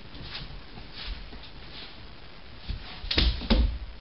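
Faint scuffling, then two loud knocks close together about three seconds in.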